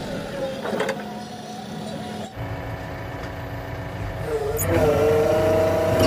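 JCB 3DX backhoe loader's diesel engine running steadily, its sound changing abruptly about two seconds in where the footage is cut. Near the end, a louder wavering pitched sound comes in over the engine.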